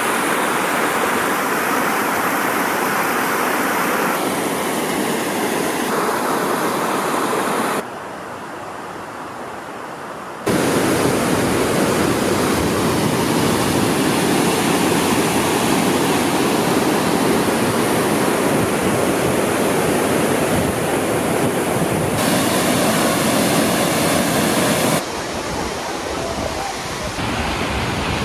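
Steady rushing of Eagle Falls' water, a dense hiss. It drops abruptly to a quieter stretch about eight seconds in, comes back as loud about two seconds later, and drops again near the end.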